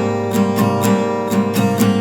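Music: a strummed acoustic guitar playing chords in a steady rhythm.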